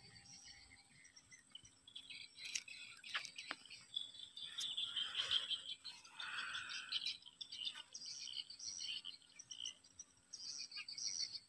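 Faint chirping of small birds, many short calls close together, with a few scattered sharp clicks.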